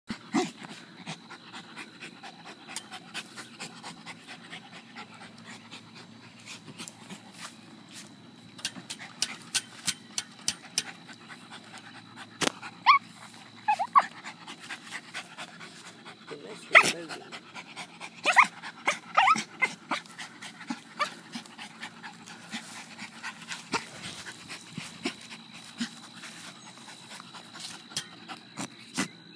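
Small terrier with its nose down a mole hole, panting and sniffing hard in quick short bursts, with a few brief whines and louder sharp sniffs around the middle.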